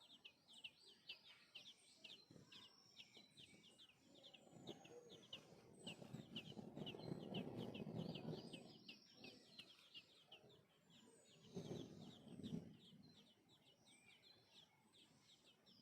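Small birds chirping in a fast, continuous series of short, high calls. A faint low rushing noise swells and fades in the middle.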